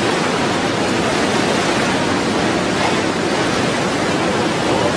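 A river in flood rushing past in a steady, loud, even wash of water noise, with no breaks or surges.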